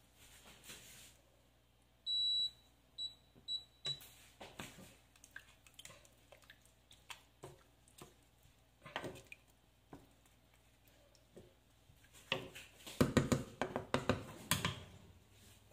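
Induction hob's touch controls beeping: one longer high beep about two seconds in, then three short ones as the setting is changed. Light knocks and a burst of clattering from a wooden spoon against the steel pan near the end.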